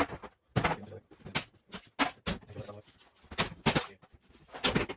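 Irregular knocks and clatter from interior demolition work, about a dozen sharp hits spaced unevenly with rattling between them.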